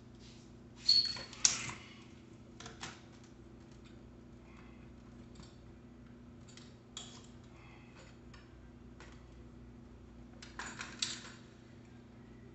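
Sharp metallic clicks and clinks as a mountain bike's front wheel, with its disc brake rotor, is handled and fitted into the fork: two loud clinks about a second in, a few lighter ticks after, and a short rattle near the end.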